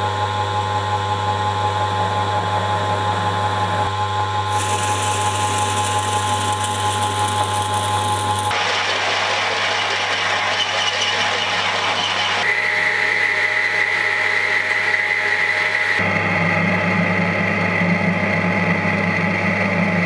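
Old Craftsman metal lathe running under power, with a steady motor hum, while a cast-iron blank is centre-drilled, drilled with a twist drill and bored. The cutting sound changes abruptly every few seconds, and a steady high tone comes in about two thirds of the way through.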